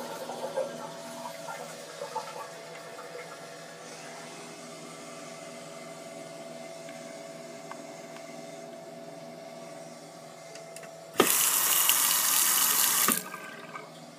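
A steady low hum, then a bathroom sink faucet is turned on and water runs hard into a porcelain basin for about two seconds before cutting off sharply.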